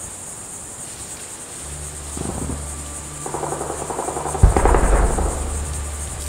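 A steady high insect buzz. A low drone comes in about one and a half seconds in, and a sudden deep boom hits about four and a half seconds in, as the title appears.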